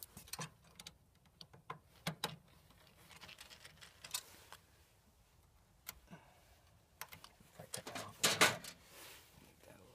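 Hands working electrical wires into a heat pump's terminal block: scattered small clicks and taps with jacket rustling, and a longer, louder rustle about eight seconds in.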